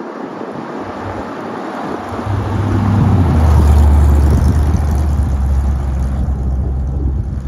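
A 1929 Ford Roadster hot rod with a 4.2-litre V8 driving past. The engine grows louder as the car approaches, is loudest as it passes about four seconds in, and stays steady and low as it pulls away.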